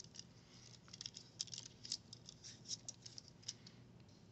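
Faint, irregular plastic clicks and light rattles from a selfie-stick tripod's phone holder being handled and tightened, most of them bunched between about one and three and a half seconds in.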